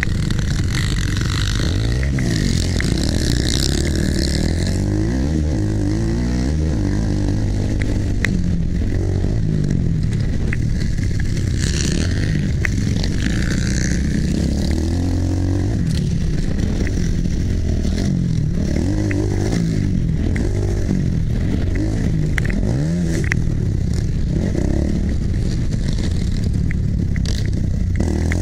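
Motocross dirt bike engine heard from on board, its revs rising and falling over and over as the rider throttles and shifts around the track, with a steady rush of wind noise over it.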